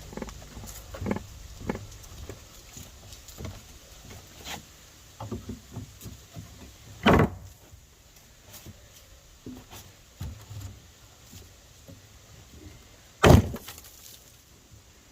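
Knocks and clatter of wooden deck boards being worked, with two loud sharp thumps about seven and thirteen seconds in.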